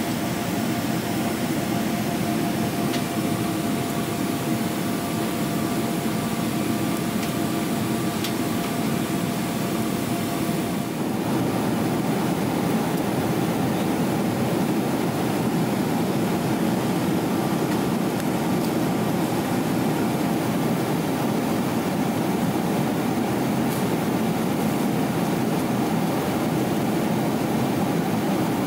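Steady cabin drone of a Boeing 777-300ER in cruise: engine and airflow noise heard from inside the passenger cabin, a little louder after about eleven seconds.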